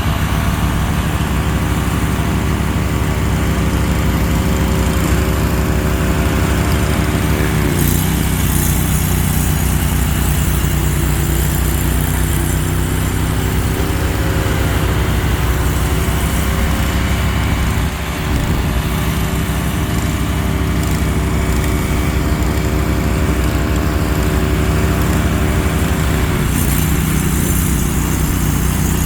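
Mahindra eMax 20 compact tractor's diesel engine running steadily at working speed while driving a Bercomac snowblower. Its pitch sags and recovers a few times as the load changes, with a hiss of thrown snow rising at times.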